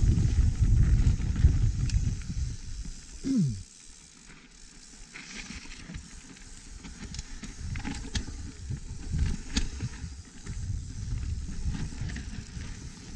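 Pivot Firebird 29 mountain bike riding down a dirt trail: a heavy low rumble of wind and tyres for about the first three seconds, a short falling whine about three seconds in, then quieter rolling with scattered clicks and rattles from the bike.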